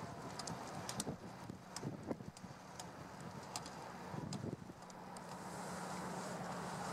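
Outdoor ambience with wind on the microphone, a steady low hum that grows a little stronger in the second half, and scattered clicks and knocks.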